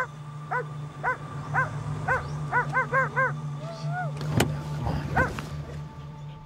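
Police dog barking: short sharp barks about twice a second, with a quick run of three near the middle and a brief whine after. A steady low hum runs underneath.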